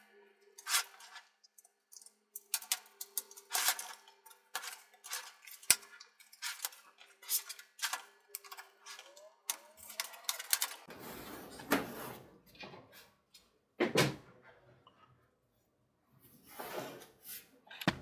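Plastic clips of a Lenovo ThinkPad T470's bottom cover snapping loose as it is pried around its edge with a plastic guitar pick: a quick run of sharp clicks and snaps. After about ten seconds come longer scraping and rustling sounds as the cover is worked free and lifted away.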